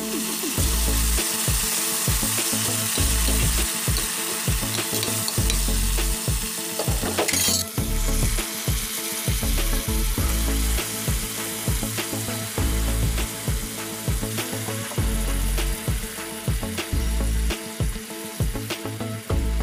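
Chopped onions and garlic frying in oil in a stainless steel pan, sizzling steadily as fish sauce and then raw pork pieces go in, with a sharp louder burst of sizzle about seven seconds in.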